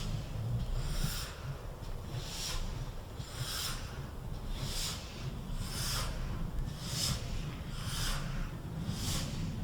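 GWR 6400-class pannier tank steam locomotive no. 6412 working slowly: exhaust chuffs at a steady beat of about one a second, over a constant low rumble.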